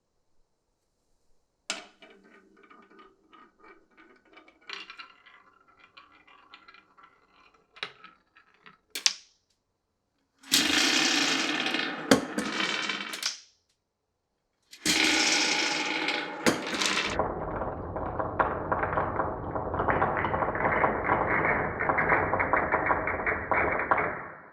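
Glass marbles rolling and clattering along a wooden marble run: a sharp click about two seconds in, then light ticking and rattling, followed by louder rolling runs that stop abruptly, the last a long, steady rattling roll.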